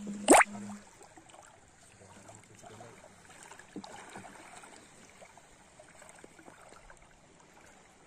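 Shallow seawater sloshing and trickling faintly as a person wades, with small scattered clicks. About a third of a second in comes one loud, very short sound sweeping sharply upward in pitch.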